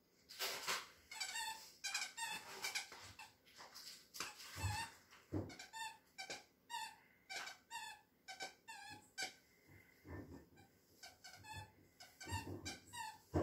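Squeaker inside a plush moose dog toy squeaking over and over, about twice a second, as a standard poodle puppy chews on it, with a few duller chomps in between.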